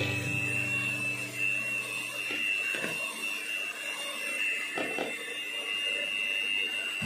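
Electric hand mixer running steadily with a high whine as its beaters whip a batter in a plastic bowl. The tail of background music dies away in the first few seconds.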